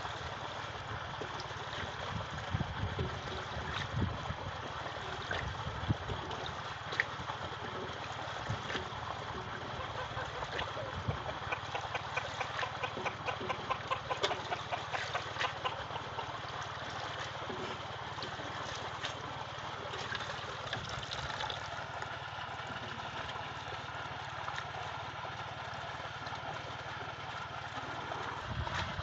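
Water splashing and trickling as a wire-mesh grading basket full of tilapia fingerlings is swirled in a tank, with a dense patter of small splashes and ticks from the fish flicking at the surface, busiest about midway. A steady low hum runs underneath and stops just before the end.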